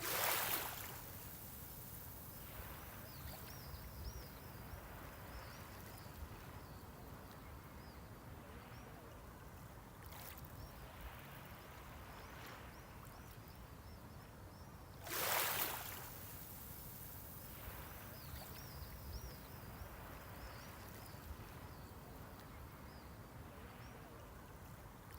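Small sea waves washing onto the shore, with a steady wash of water between them and two louder surges of a wave breaking, one at the very start and another about fifteen seconds in. Faint high chirps come through a few times.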